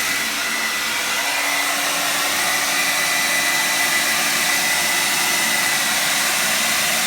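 Revlon 1875-watt Turbo hair dryer running steadily and putting out serious wind: a strong rush of air with a thin, steady whine from its fan motor. A low hum joins about a second and a half in.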